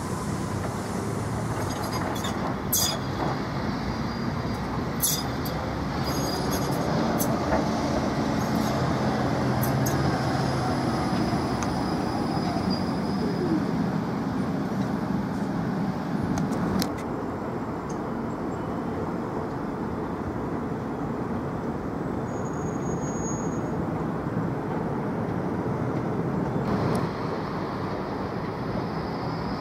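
Škoda 30T ForCity Plus tram running along the track close by: a steady rolling rumble with a motor whine that falls in pitch about halfway through, and a few sharp clicks.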